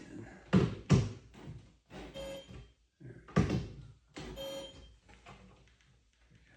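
Workshop handling noises: three loud knocks or thunks, with two brief whirring sounds of steady pitch in between.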